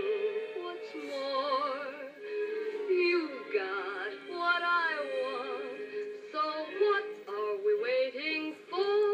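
A woman singing a song with vibrato over musical accompaniment, from an old film's soundtrack heard through a television speaker.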